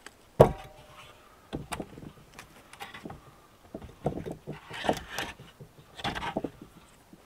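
A heavy log round set down on a stone slab with one sharp thud about half a second in, then a string of smaller knocks and scrapes of wood on stone as it is shifted and stood upright.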